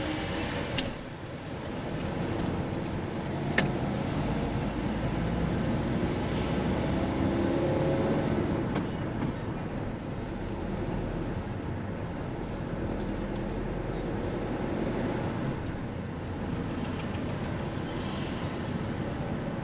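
Car engine and road noise, steady throughout, with engine pitch rising and falling during the first eight seconds or so. A sharp click stands out about three and a half seconds in.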